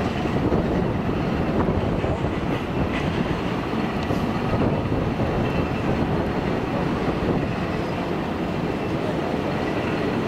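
Steady rumble of an Airbus A380's jet engines as the airliner comes in to land.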